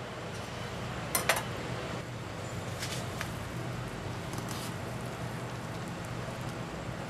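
Stainless steel tongs clinking against a square metal pot while lifting udon from boiling water: two sharp clinks just over a second in, then a few lighter ones. Underneath is the steady hiss of the water boiling on a gas burner.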